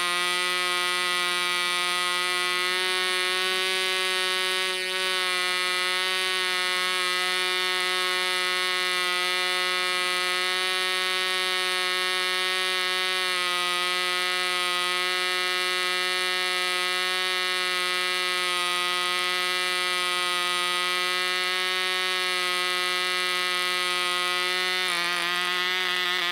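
SAM 35 special edition 0.5 cc model diesel engine, swinging a 6x4 propeller, running steadily at high speed with a high, even buzz on its first run-in. Near the end the pitch shifts slightly as a hand adjusts the engine.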